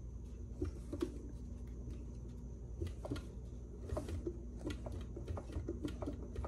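Mercury 150 V6 outboard crankshaft being turned over by hand in the stripped block, giving faint, irregular light knocks, a little "plump, plump, plump". The knock, still there with some pistons removed, is taken for the damaged pistons left in the cylinders.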